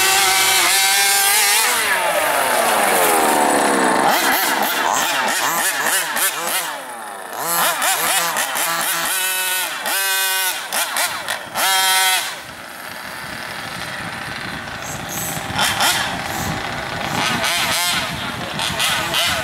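Small gas-powered two-stroke engines of large-scale radio-controlled cars revving hard, their high-pitched buzz rising and falling. The pitch sweeps down sharply about two seconds in, and there are quick rev bursts over a few seconds around the middle.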